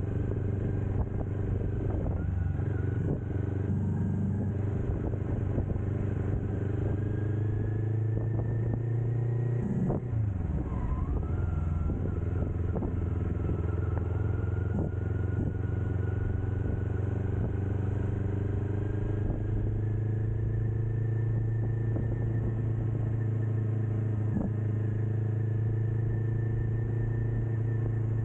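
Kawasaki Ninja 400's parallel-twin engine running through a Kemimoto aftermarket muffler under steady throttle while riding, its pitch climbing slowly. About ten seconds in the revs dip briefly and climb again. Wind rushes over the microphone.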